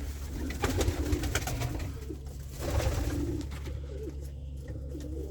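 Pigeons cooing repeatedly in the loft, their wavering coos overlapping. There are a few sharp clicks about a second in and a steady low hum underneath.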